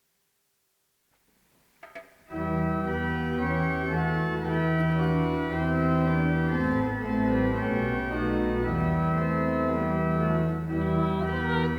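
Near silence, a soft click, then a church organ comes in about two seconds in, playing full sustained chords that change slowly.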